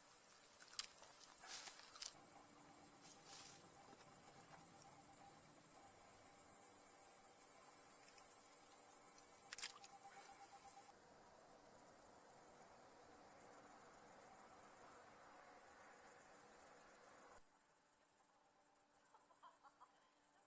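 Crickets chirring in a steady, high-pitched night chorus, with a few soft clicks.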